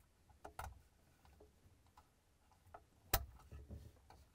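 Faint small plastic clicks as red locking clips are pressed onto the quick-connect water-line collets of a refrigerator water filter housing. The sharpest click comes about three seconds in.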